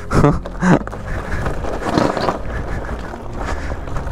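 Talaria Sting electric dirt bike rolling down a rocky trail: the tyres rumble and rattle over loose stones, with no engine note, and wind buffets the microphone.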